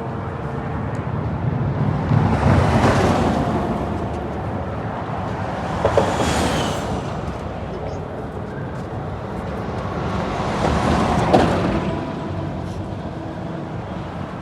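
Road traffic going by: three vehicles pass in turn, each swelling and fading over a couple of seconds over a steady background rumble.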